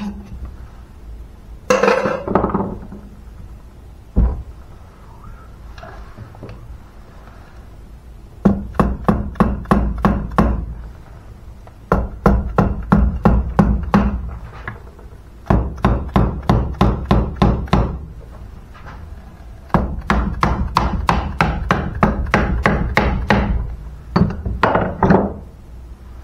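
Soft-faced mallet tapping on the crankcase of a Simson Schwalbe moped engine in five runs of quick taps, about five a second, to loosen the case halves, which are stuck fast. A single clatter comes about two seconds in.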